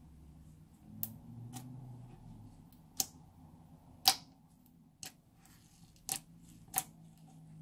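Sharp clicks and taps from handling slime and its containers: about seven, irregularly spaced, the loudest about four seconds in, over a faint low hum.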